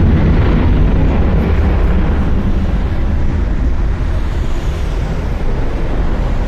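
Jet engines of a Boeing 737 at takeoff power during its takeoff roll: a loud, low, continuous noise that slowly fades as the aircraft moves away down the runway.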